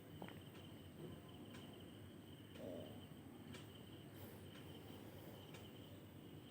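Near silence: faint room tone with a steady high trill and soft ticks about once a second.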